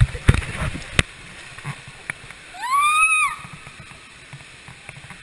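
A child's single squeal on a water slide, rising then falling in pitch, about three seconds in, over the rushing noise of the ride. A few sharp knocks in the first second.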